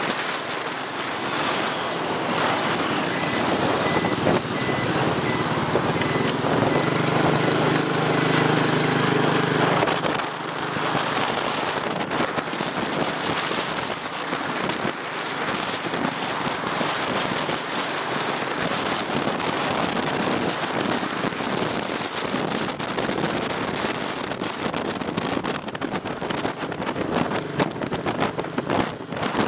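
Riding on a motorbike: wind buffeting and crackling on the microphone over the motorcycle's engine and road noise. A deeper engine hum strengthens from about four seconds in and drops away at about ten seconds.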